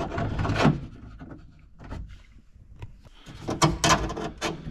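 Door-handle cable and latch linkage inside a Ford Bronco door being worked and fished back into place: a scraping rustle at first, a few scattered clicks, then a quick cluster of metallic clicks and rattles near the end.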